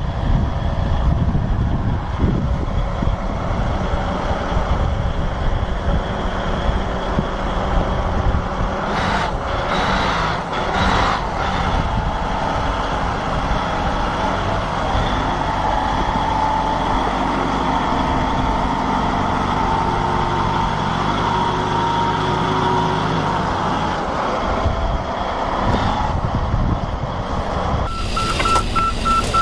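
Diesel engine of a large wheel loader running under load as it climbs a ramp onto a low-bed trailer, with a few clunks about nine to eleven seconds in. Near the end the sound cuts to a fast series of beeps over another engine.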